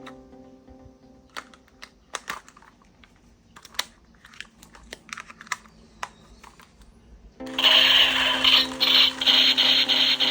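Clicks and taps of plastic toy parts being handled. About seven seconds in, an electric toy gun's small motor switches on with a loud, steady buzz.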